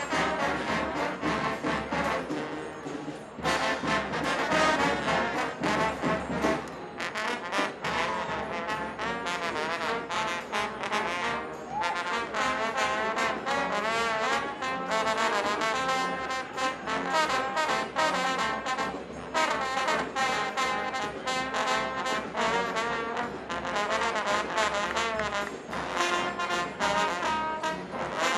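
Street brass band playing a tune, with trombones and trumpets carrying the melody over a steady beat.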